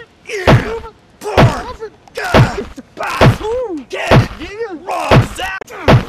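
A beating: seven loud punches land at about one a second, each followed by a man's short pained cries and grunts.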